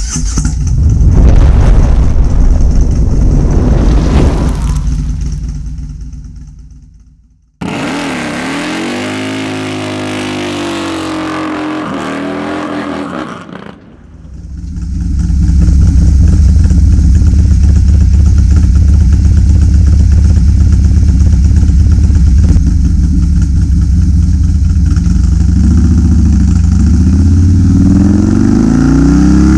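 2017 Harley-Davidson Street Glide's 107-cubic-inch Milwaukee-Eight V-twin, fitted with a Red Shift 468 cam and D&D Billet Cat exhaust, running on a chassis dyno. It runs steady and loud through the second half, and its revs start to climb near the end. Before that, a loud engine-like sound fades out over the first several seconds, followed by a few seconds of a pitched sound that wavers up and down.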